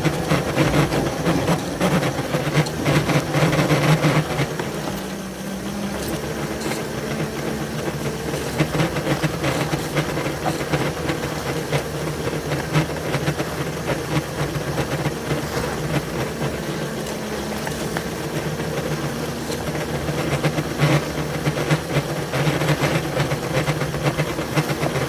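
Two locomotives running under load as they push through deep snow, a steady engine drone with scattered clicks.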